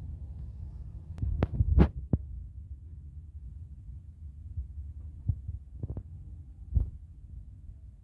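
A low, steady rumble with several dull thumps: a quick cluster of three or four about one and a half to two seconds in, the loudest among them, then a few more single thumps later, the last strong one near seven seconds.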